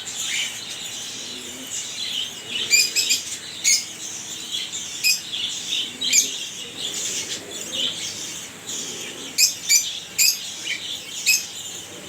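Finches chirping: short, high chirps repeated at irregular intervals, sometimes several in quick succession.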